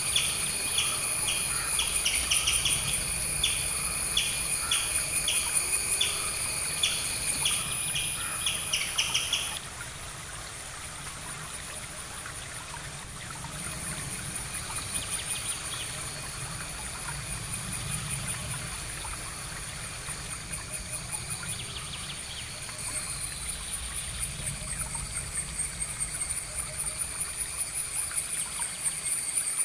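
Outdoor nature ambience: a bird repeats a short chirp about twice a second, stopping about nine seconds in. A steady high-pitched trill runs underneath.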